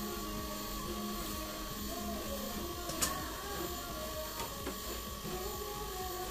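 Steady mechanical whir with a thin high hum, as from a running kitchen appliance or fan, and one sharp metallic clink about three seconds in, as a steel ladle knocks a steel bowl while dal is served.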